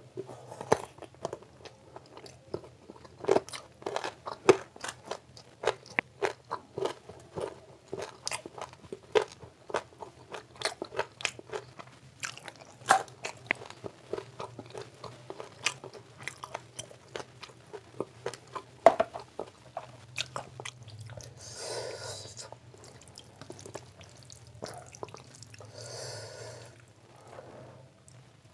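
Close-up eating by hand of rice mixed with spinach curry: wet, smacking chewing with many sharp mouth clicks and smacks in quick succession. The chewing thins out in the last third, where there are two longer, softer noisy sounds.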